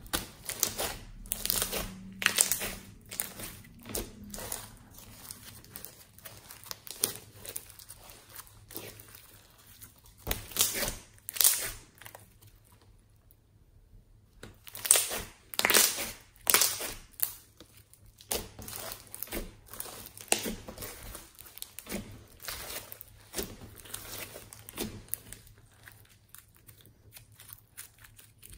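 Hands stretching and squishing clear slime over fluffy pink slime with foam beads, giving sticky crackling and snapping in bursts, with a short lull about halfway through.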